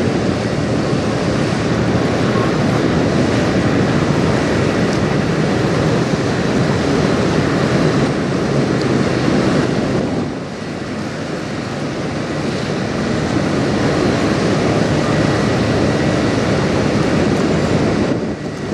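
Steady wind noise buffeting the microphone, mixed with the wash of water. The noise dips briefly about ten seconds in and again near the end.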